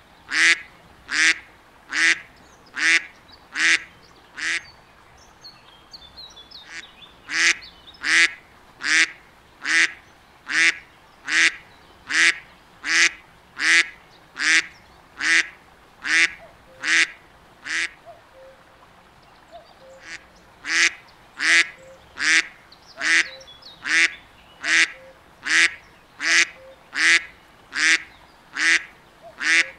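Mallard duck quacking in a long, even series of loud quacks, nearly two a second, broken off twice for a second or two.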